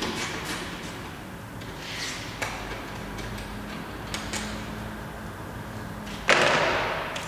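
A few light clicks and knocks of handling in a workshop. About six seconds in comes a sudden loud sliding, rushing noise that fades away over about a second.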